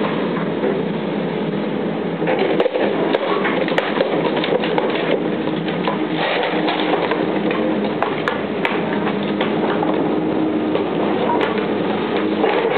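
Tracked hydraulic excavator running steadily while its bucket pushes down an old wooden boardwalk section, with sharp cracks of breaking timber now and then as the planks and railing give way.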